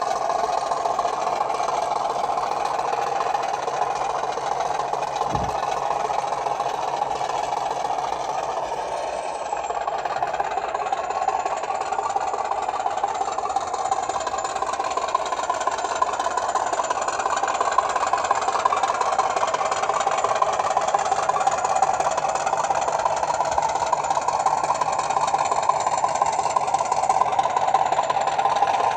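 Model British Rail Class 50 diesel locomotive's sound decoder playing its English Electric V16 engine sound through the model's small onboard speaker as it runs, a steady diesel note that gets a little louder about ten seconds in.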